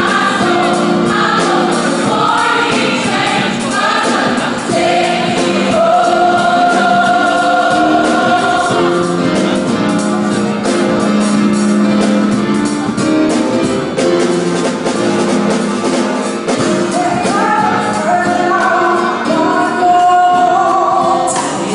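Gospel choir singing in harmony with a live band of drums, bass and keyboards, with a few long held notes in the middle of the passage.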